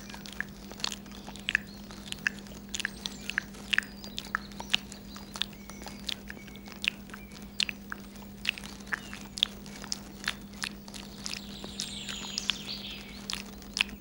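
Wasp larvae feeding on balls of chewed insect meat: irregular sharp, wet clicks and smacks of chewing, about two or three a second, over a steady low hum, with a few faint squeaks near the end.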